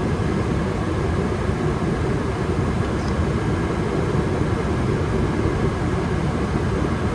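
Gas furnace running with its burners firing: a steady, even rushing noise of flame and fans that does not change.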